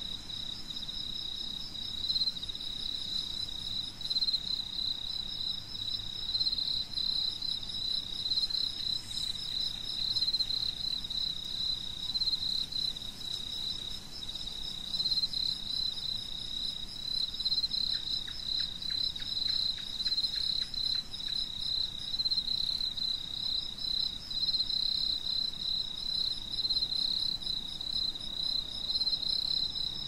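Crickets chirping in a steady chorus: a continuous high-pitched pulsing trill from more than one singer.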